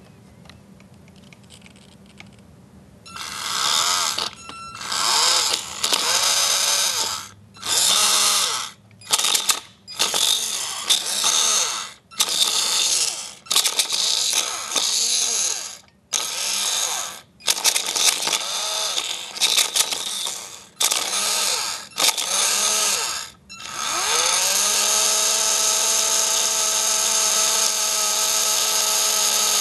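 Titan 12T brushed electric RC motor, its back end removed, whining up to speed and winding down again in about a dozen short bursts, then running steadily from about 24 seconds in. The motor, thought to be broken, runs but only kind of works.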